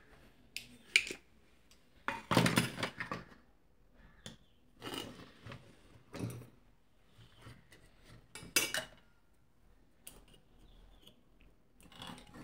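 Scattered clicks, taps and clatter of a circuit board, small components and hand tools being handled on a workbench, with a louder cluster of knocks about two seconds in and a sharp one past the middle.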